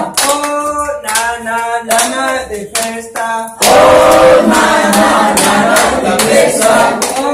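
A group of voices singing together in unison to steady hand clapping, about two claps a second. A little past halfway the singing becomes suddenly louder and fuller.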